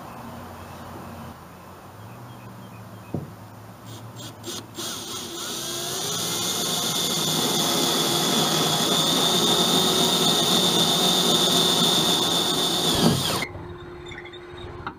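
Cordless drill with a twist bit boring a hole through a small sailboat's fiberglass bow. The motor winds up over a couple of seconds, runs steadily at speed, then stops suddenly about 13 seconds in.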